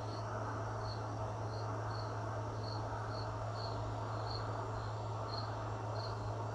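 A cricket chirping steadily, about two short high chirps a second, over a steady low hum.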